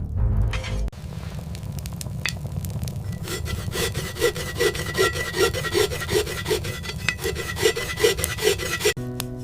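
A hand tool rasping back and forth in steady rhythmic strokes, like filing or sawing, about three strokes a second. It stops abruptly near the end.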